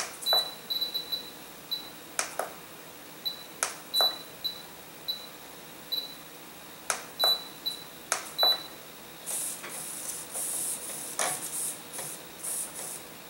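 Radio-control transmitter's keys being pressed to work through its settings menu: each press gives a click and a short high beep, in quick runs of several beeps with pauses between. Near the end the beeps stop and a few seconds of soft hissy rustling follow.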